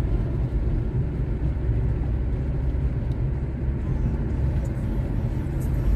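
Steady low road and engine noise of a car driving, heard from inside the cabin.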